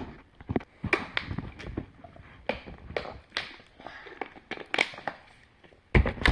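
Irregular close-up crinkling and clicking from gummy sushi candy being handled and eaten, with a louder crunch about six seconds in.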